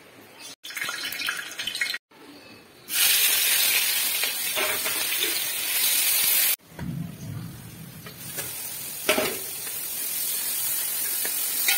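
Hot oil sizzling in a wide metal pan as spices and chopped aromatics fry; the sizzle is loudest from about three seconds in and cuts off suddenly past the middle, then goes on more softly while a spatula stirs sliced shallots in the pan.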